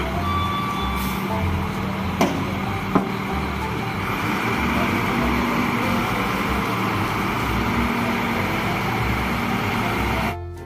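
Lonking wheel loader's diesel engine running steadily as the machine drives down a trailer's loading ramps, with two sharp knocks about two and three seconds in.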